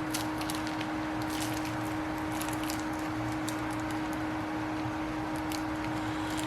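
Scattered small clicks and rustles of plastic packaging and a bit case being handled and pried at, over a steady electrical hum in the shop.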